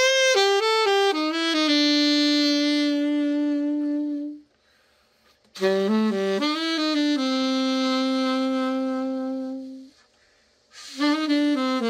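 Selmer Mark VI alto saxophone played in short phrases: a few quick notes settling into a long held low note, twice with a short pause between, and a third phrase starting near the end. It is being play-tested after a full overhaul.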